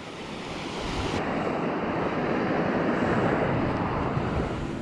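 Gulf surf washing onto a sandy beach, a steady rush that swells about halfway through and eases near the end, with wind buffeting the microphone.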